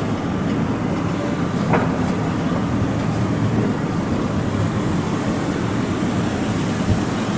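Tokyo Metro Ginza Line subway train running at the depot level crossing: a steady low running noise with a single faint click about two seconds in.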